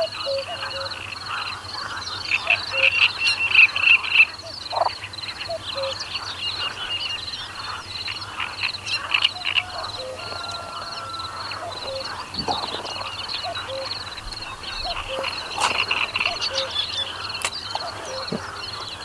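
A chorus of frogs croaking, over a steady, evenly pulsed high trill.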